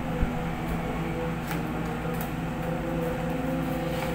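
A steady mechanical hum of a few even tones, with a bump about a quarter second in and a couple of faint taps as a cardboard ring-light box is handled.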